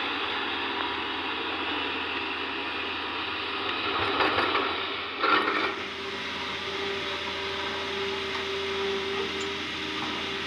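Hitachi ZX200 excavator at work: engine and hydraulics running steadily, with a louder swell about four to six seconds in and a steady whine after it.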